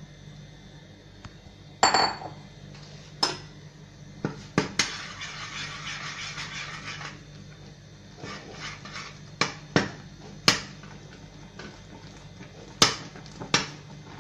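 A spoon clinking and knocking against a steel pot at irregular intervals as rice flour is stirred into boiling water, with a stretch of scraping about five seconds in.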